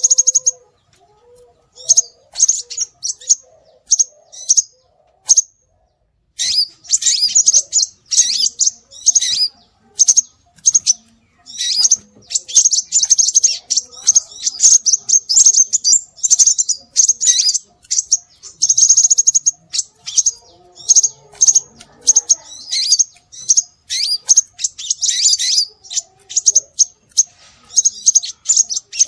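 High-pitched bird chirps, a recording of scarlet minivet calls played as a lure to draw birds in. Scattered single chirps at first, then after a short pause about six seconds in, long rapid series of chirps.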